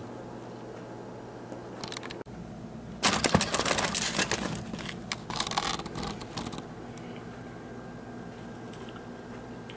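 Aluminium foil crinkling and rustling as a hand digs into a foil-lined takeout container of fries, for about three seconds starting around three seconds in. A low steady hum sits underneath.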